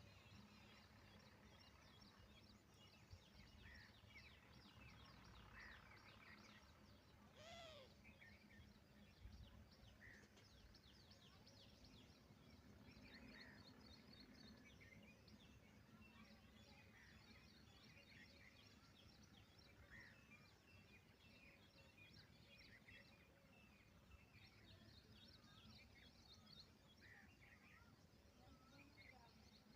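Faint outdoor bird chorus: many small birds chirping and twittering throughout, with one louder short call about seven and a half seconds in, over a low steady background hum.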